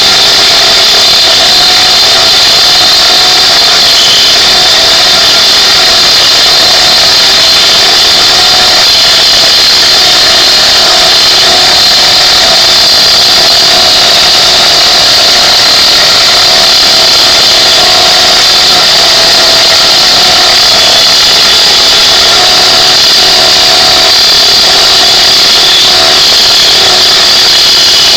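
Metal lathe running steadily while its cutting tool cuts a step into the side of a metal nozzle workpiece, a loud even machining noise with a steady high whine.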